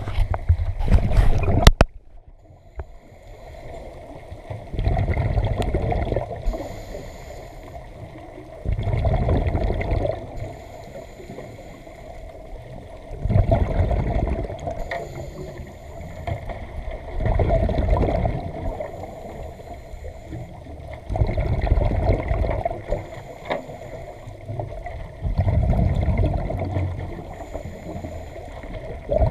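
A scuba diver breathing through a regulator, heard underwater: a bubbly exhalation about every four seconds, each lasting a second or two, with a faint hiss of inhalation between. It opens with a loud rush of water and bubbles that stops suddenly about two seconds in.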